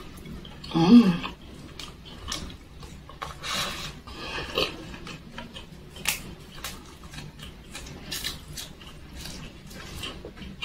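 Close-up mouth sounds of chewing tender chicken: wet smacking and clicking of lips and tongue, with a brief hum about a second in.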